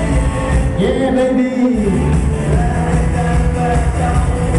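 Loud music played over a sonido sound system, heavy in bass. About a second in, the bass drops out for about a second while a gliding tone rises and falls, then the full beat returns.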